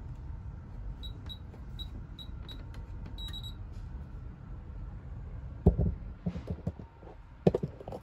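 Beko condenser tumble dryer's control panel giving a quick run of about seven short high beeps as its programme dial is turned round to Off. Later come a couple of sharp knocks, the loudest sounds.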